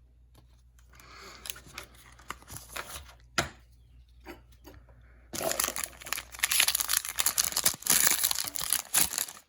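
Foil booster-pack wrapper being handled with scattered crinkles, then from about five seconds in torn open with loud, dense crinkling.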